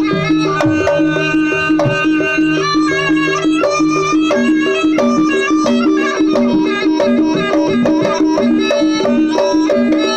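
Javanese jaranan gamelan music: a lead melody moving between held notes over a steady, repeating two-note pattern of struck pitched percussion.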